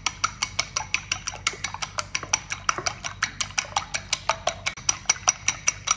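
Wooden chopsticks beating eggs in a glass bowl, clicking against the glass in a fast, even ticking of about seven strokes a second, with a light sloshing of the liquid egg. The beating stops just before the end.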